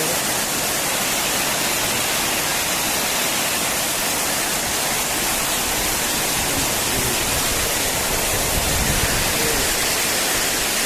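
Heavy rain pouring down in strong wind, a loud steady hiss, with a low rumble of wind buffeting the microphone about eight to nine seconds in.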